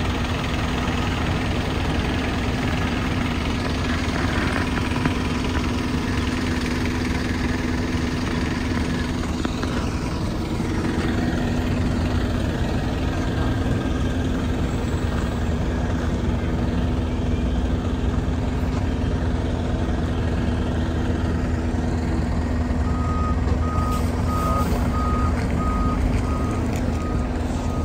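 Iveco Tector 6 turbo-diesel engine of an Iveco Midirider bus idling steadily. About five seconds before the end, a series of short, evenly spaced beeps starts over the idle.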